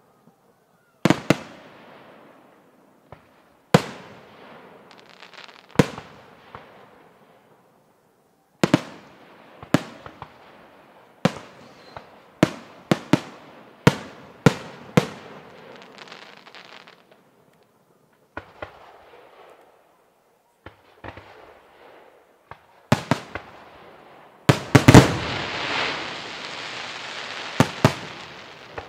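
Aerial firework shells bursting overhead: a series of sharp bangs at irregular intervals, each trailing off in an echo. Near the end a loud cluster of bangs runs into a few seconds of dense, continuous crackling.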